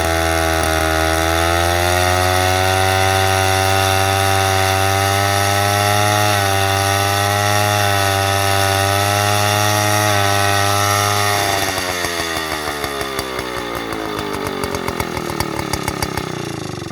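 Vintage Hungarian Kismotor és Gépgyár KL-150 chainsaw engine running steadily at high speed. About eleven seconds in the revs fall away, the engine slowing to separate, spaced-out firing beats before it stops near the end.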